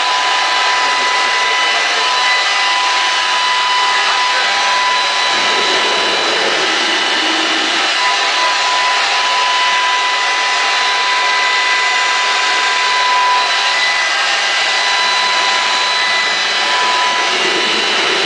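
Homemade gasoline-fed ramjet running on air forced in by a leaf blower: a loud, steady rushing roar with a steady high whine and its overtones over it.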